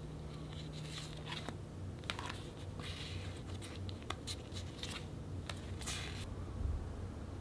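Paper and plastic package contents being handled by hand: intermittent rustling, sliding and small clicks, over a faint steady low hum.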